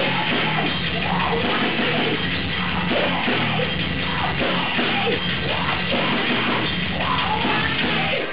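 Live heavy metal band playing loud: electric guitar, bass guitar and drum kit, with a female vocalist singing and yelling into a microphone.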